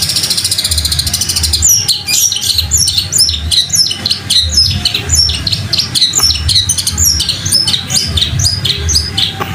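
Long-tailed shrike (cendet) singing in imitation of tree sparrow chatter. It opens with a very fast, buzzy trill for about a second and a half, then goes on with a rapid run of sharp, falling chirps, about three to four a second.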